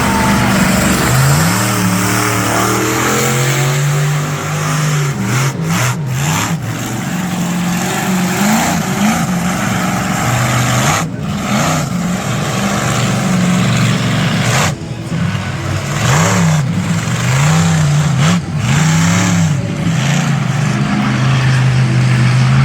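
Monster truck engine revving, its pitch swinging up and down again and again in quick swells over a steady rush of noise.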